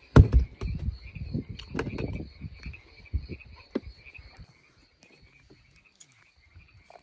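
A steady night chorus of calling insects and frogs, pulsing on two high pitches. Over it, in the first few seconds, come knocks and rustles of gear being handled, with a loud thump just after the start.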